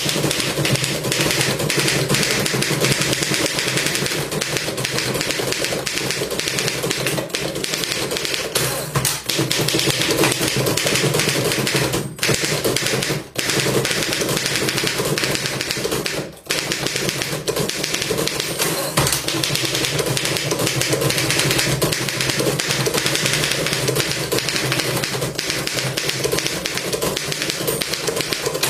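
Vintage manual typewriter being typed on fast and without let-up: a rapid stream of typebar strikes clacking against the platen, broken by a few brief pauses.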